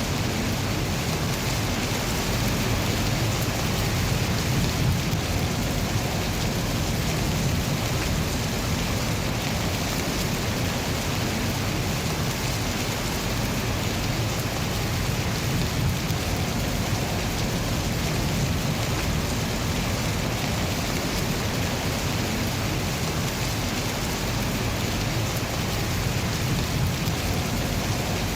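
Steady rain falling, with a low rumble that swells and fades beneath it.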